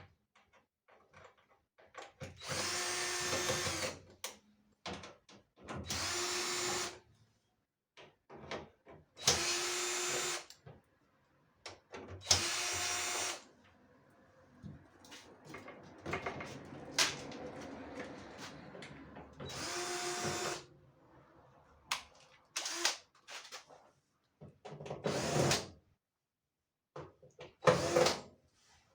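Cordless drill-driver spinning in about five short runs of a second or so each, with clicks and handling noise between them: screws being driven out of or into the dryer's panels.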